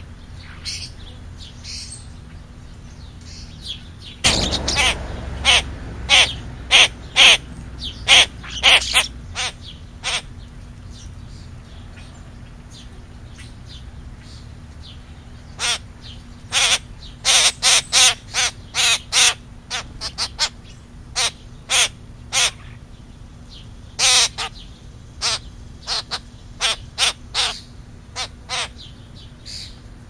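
Crow cawing: a run of about eight short, loud caws a little after the start, then a longer run of caws after a pause.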